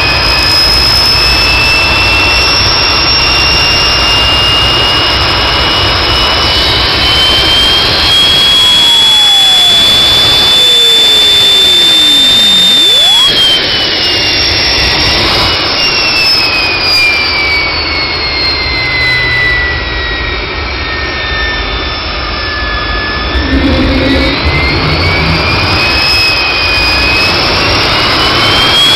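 Gas turbine engine running on a test stand: a high turbine whine over a steady rush of exhaust. The whine climbs slowly for about the first twelve seconds, sinks through the middle as the engine slows, and rises again near the end.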